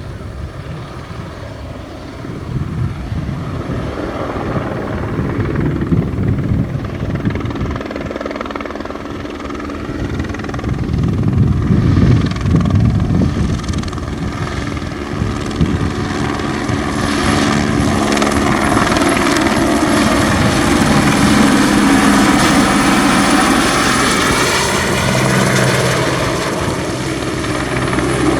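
Eurocopter AS350B single-turbine helicopter running in flight, its rotor and turbine growing steadily louder as it comes close, loudest over the last ten seconds. Its tones bend down and back up in the second half as it moves past.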